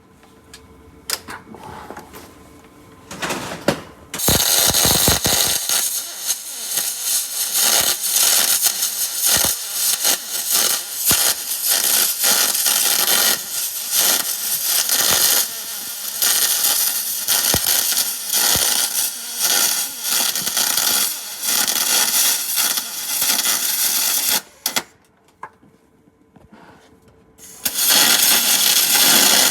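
Electric welding arc on aluminum, a loud crackling hiss that burns for about twenty seconds, stops, and strikes up again for a shorter bead near the end.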